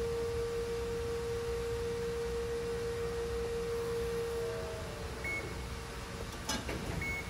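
Amada FBD-5020 hydraulic CNC press brake running with a steady whining tone for about five seconds that then stops, over a low machine hum. Two short high beeps follow, with a click between them.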